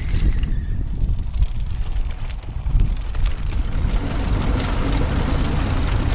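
Road bicycles rattling over cobblestones as riders pass close by, with wind buffeting the microphone; the rattling grows denser about four seconds in.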